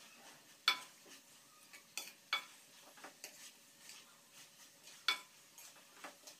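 Wooden spoon stirring shredded cabbage and potato in a metal pan, with a few sharp knocks of the spoon against the pan, the loudest about a second in, at two seconds and at five seconds, over a faint sizzle of the frying.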